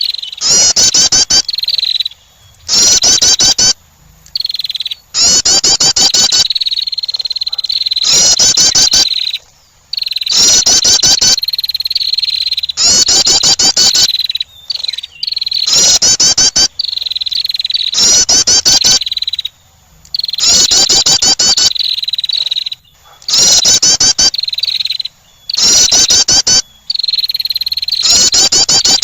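Female wren song played as a bird lure: loud phrases of rapid, high trilled notes repeating about every two and a half seconds, with a softer, steady high trill between them.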